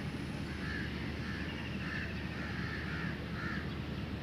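Crows cawing, a run of short harsh calls about two a second, over a steady low background rumble.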